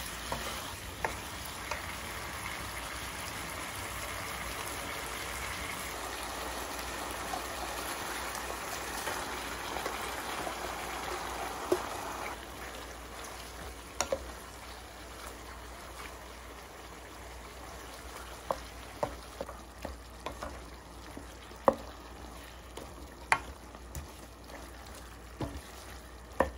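Spicy chicken sizzling in a wok on a portable gas stove while a wooden spatula stirs it. The sizzle is steady at first and fades a little before halfway, after which the spatula knocks against the pan in several sharp clicks.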